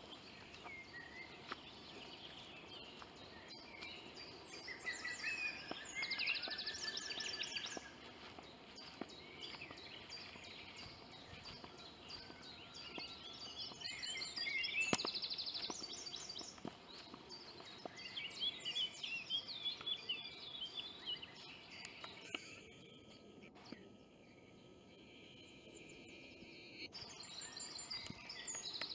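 Songbirds singing in the woods: several short bursts of varied high phrases and fast trills over a faint steady background.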